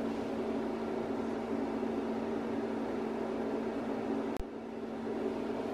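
A steady electrical hum with a low tone over an even hiss, broken by a single click a little over four seconds in, after which it is slightly quieter.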